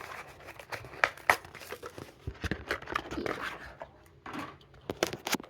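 A Hot Wheels blister card being torn open by hand: cardboard tearing and the plastic blister crinkling, with scattered sharp snaps and clicks.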